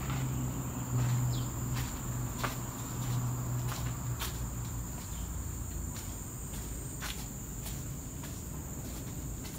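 Steady high-pitched chirring of insects in the forest, with scattered footsteps of someone walking over a concrete floor. A low hum sounds underneath during the first half.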